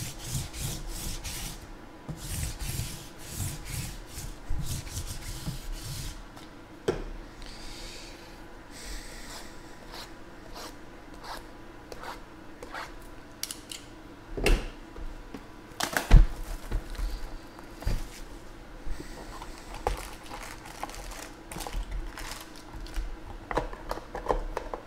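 Cardboard trading-card boxes and foil-wrapped packs being handled on a table: rubbing, scraping and rustling, with scattered clicks and knocks as boxes are set down, the loudest about 16 seconds in.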